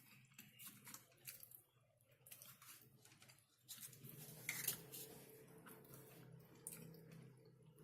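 Close-miked mouth sounds of eating KFC mashed potato: soft wet smacks, squishes and lip clicks, with a low steady hum coming in about halfway.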